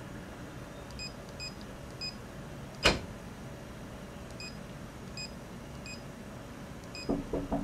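Touchscreen of a Sharp multifunction printer giving a short high beep at each key tap on its on-screen keyboard, about eight beeps at an uneven typing pace. There is one sharp click about three seconds in and a few low knocks near the end.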